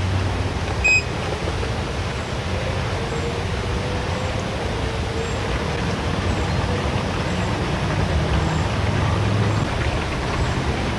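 A short, high electronic beep about a second in from a Flytech bait boat's remote handset as the bait is released, over a steady low rumbling noise.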